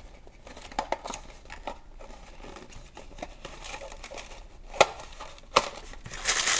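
Cardboard and paper toy packaging being handled: the card insert slides and flexes with scattered light scrapes and clicks, and two sharper snaps come about five seconds in. Near the end it turns into loud, continuous paper crinkling.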